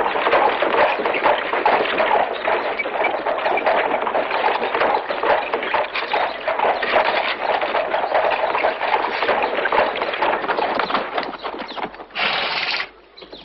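Horse's hooves clip-clopping and carriage wheels rattling, a dense steady clatter of a horse-drawn carriage on the move that fades away near the end.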